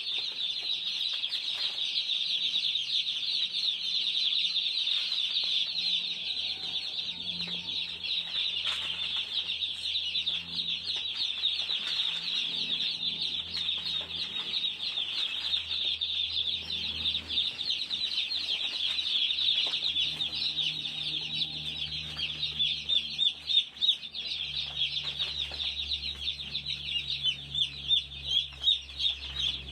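A flock of day-old broiler chicks peeping constantly, a dense chorus of high-pitched cheeps from many birds at once, just placed in the brooder.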